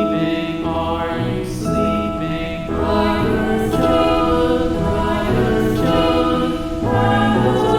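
Slow, relaxing background music of sustained chords, with a choir-like sound, the chord changing every second or two.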